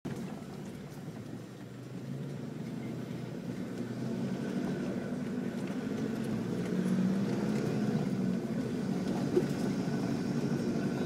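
Engine and drivetrain of an off-road 4x4 heard from inside the cab as it crawls along a dirt forest track. The engine runs steadily at low revs and grows louder after about two seconds. There is one sharp knock about nine seconds in.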